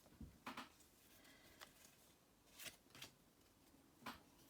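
Near silence with faint handling of Pokémon trading cards: a few soft, brief card slides and taps.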